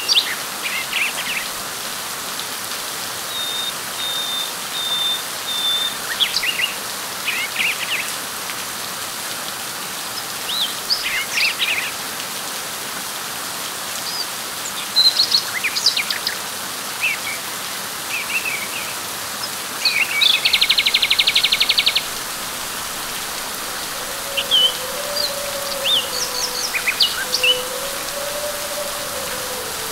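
Steady light rain falling on leaves, with birds chirping and calling on and off over it. About two-thirds of the way through, a rapid buzzing trill lasts about a second and a half.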